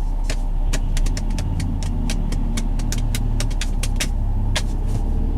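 Car engine and road rumble heard from inside the moving car, with a quick run of sharp clicks, about four or five a second, that stops near the end.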